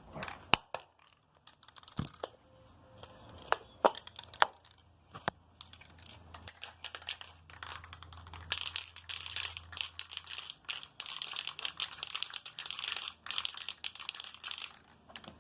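Scattered knocks and clicks of a spray paint can being picked up and handled, then a long run of dense, fast rattling from about halfway through: the rattle can being shaken to mix the paint before spraying.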